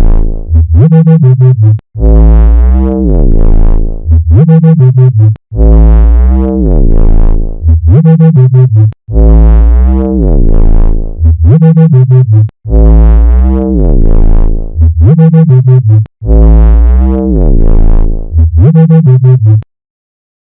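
Synthesized flying-saucer sound effect: an electronic tone that glides downward in pitch, followed by a quick run of rapid pulses, the cycle repeating about every three and a half seconds. It breaks off shortly before the end.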